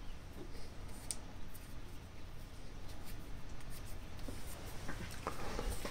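Faint scratchy rubbing with a few light ticks: hands handling thread and materials at a fly-tying vise.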